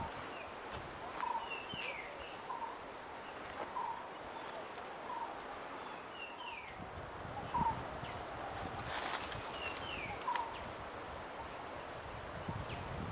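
Forest ambience: a steady, high-pitched drone of insects, with birds calling, a short note repeating about once a second and now and then a higher falling chirp. A brief rustle comes about nine seconds in.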